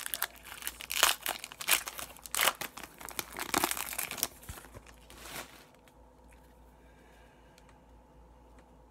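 Foil wrapper of an Upper Deck hockey card pack crinkling and tearing as it is ripped open by hand. The crackling dies away about five seconds in, leaving only faint ticks.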